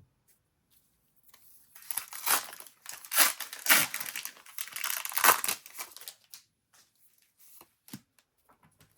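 A foil trading-card booster pack torn open, its wrapper crackling and crinkling in a run of noisy tearing for about five seconds, starting a second and a half in.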